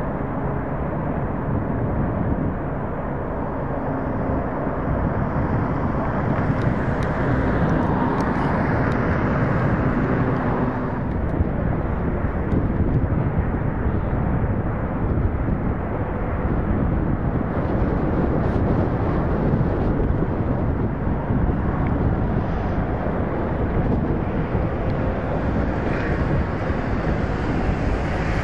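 A freight train and its diesel locomotives running, a steady loud rumble with a faint engine hum.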